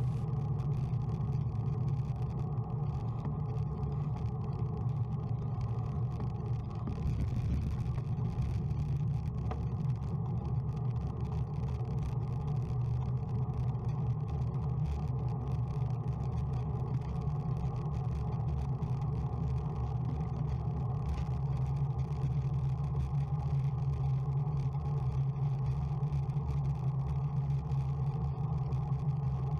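Steady wind buffeting on the microphone and road and tyre noise from a bike riding at around 30 to 40 km/h.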